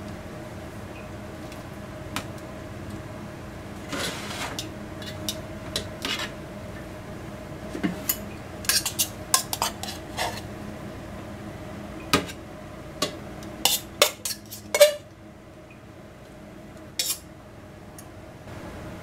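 Metal spoons clinking and scraping against a small stainless steel pot and enamel plates while sautéed green peppers are served out, in irregular clinks, busiest in the second half. A faint steady hum runs underneath.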